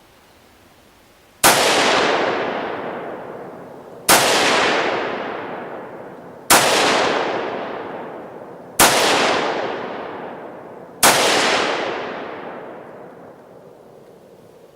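Five slow, single shots from a 5.56 NATO AR-15 rifle, about two and a half seconds apart, each followed by a long fading echo.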